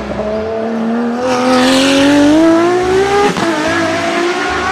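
Ferrari 599XX race car's V12 engine accelerating past, its pitch climbing steadily. It shifts up about three seconds in, then climbs again as the car pulls away.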